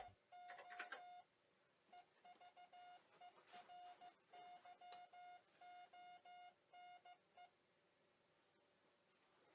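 Morse code (CW) sent as a beeping tone: one steady mid-pitched note keyed on and off in short dots and longer dashes for about seven seconds, then stopping.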